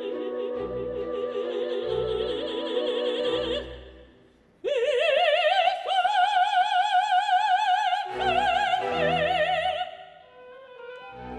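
Operatic singing with orchestra. Singing with wide vibrato over regular low orchestral beats breaks off about four seconds in. After a short pause a solo voice slides up into a long, loud, high held note with strong vibrato, then fades into quieter orchestral playing near the end.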